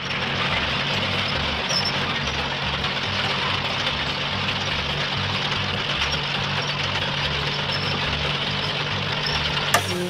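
Heavy truck engine running steadily: a constant low hum under an even hiss. It starts abruptly and cuts off with a sharp click near the end.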